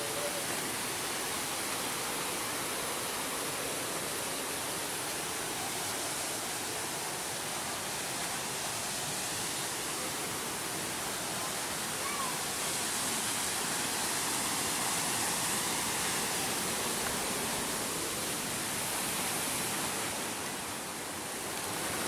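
Small waterfall: a steady rush of falling water.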